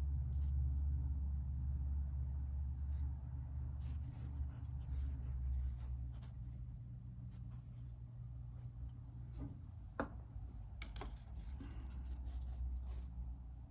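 Quiet handling noise from fingers turning a small metal miniature figure in front of a foam block: faint rubbing and light ticks, with one sharp click about ten seconds in, over a low steady hum.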